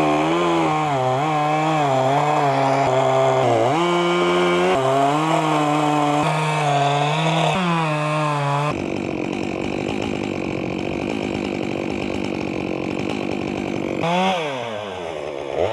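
Chainsaw running at speed and cutting through a bloodwood log to make a fence post, its engine pitch dipping again and again as the chain bogs into the wood. About nine seconds in the sound changes abruptly to a rougher, noisier cutting sound, and there is a quick rev near the end.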